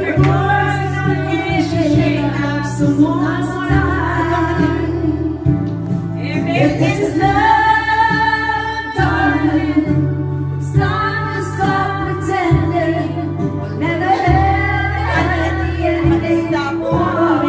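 A woman singing karaoke into a handheld microphone over a backing track with a steady bass line.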